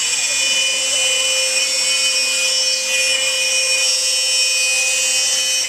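Home-built CNC router running: the router spindle gives a steady high whine, while the stepper motors sweep up and down in pitch as the axes move.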